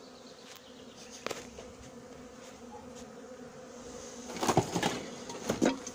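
Honeybees buzzing, a steady hum. In the second half, knocks and clatter of wooden hive bars and frames being handled and rummaged through.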